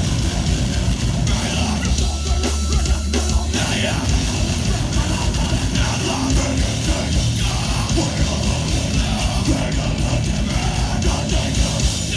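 Loud live hardcore band playing: heavily distorted guitars and bass, fast pounding drums and yelled vocals, recorded from the crowd.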